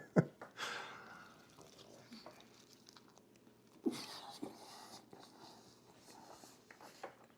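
Quiet, close-miked eating sounds: soft chewing and small mouth clicks, with a long breath out just after the start and a single soft knock about four seconds in.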